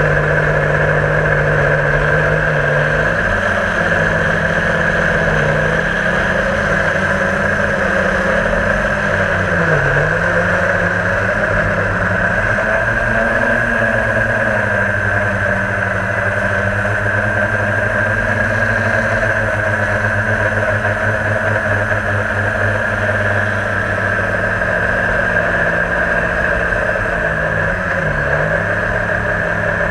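Drone's electric motors and propellers buzzing steadily in flight, a high whine over lower tones that dip and come back up several times.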